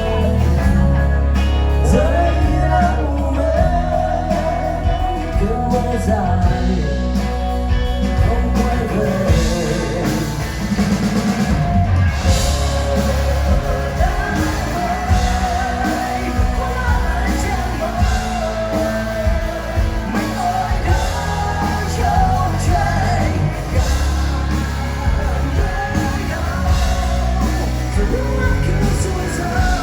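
Rock music: a full band with drums, bass and electric guitar, and singing.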